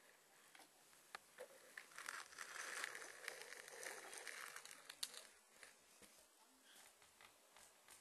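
Faint rustling and crinkling, loudest about two to four seconds in, with a few light clicks scattered through it.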